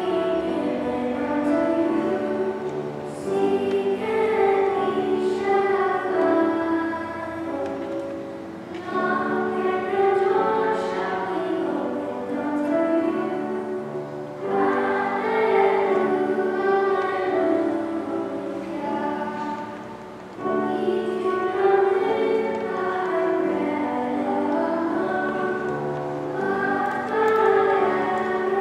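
Children's choir singing a hymn-like piece together in a church, in long phrases with short breaks between them.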